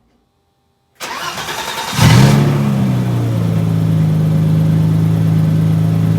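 A BMW E30's engine started: about a second of starter cranking, then it catches with a brief rev and settles into a steady idle.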